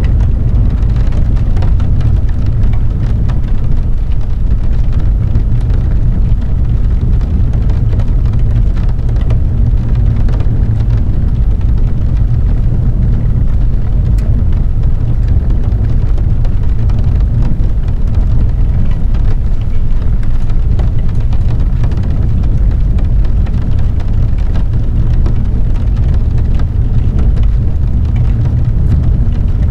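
Rain falling on a car's windshield and roof, heard from inside the cabin: scattered drop ticks over a steady, deep rumble.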